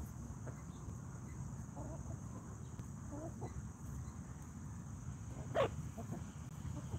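Hens foraging on grass, giving a few soft, short clucks and one louder, sharper cluck a little over halfway through, over a low steady rumble.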